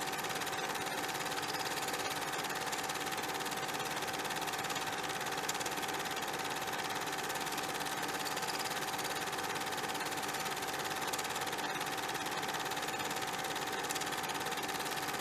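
Steady mechanical whirring with hiss and a constant mid-pitched hum, with a few faint clicks.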